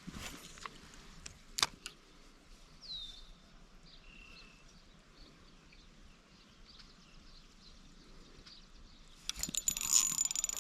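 Quiet outdoor ambience with a few faint bird chirps and a couple of sharp clicks. Near the end, a louder hissing whirr with a thin high whine: a fishing reel and line as a cast goes out.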